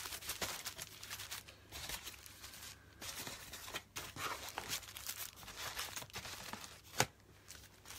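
Individually wrapped sanitary night towels being taken out of their box and counted one by one: plastic wrappers crinkling and rustling irregularly, with a sharp tap near the end.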